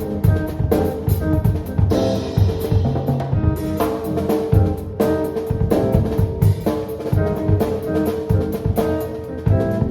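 A live band playing: a drum kit with bass drum and snare keeps a steady beat under held chords from pitched instruments.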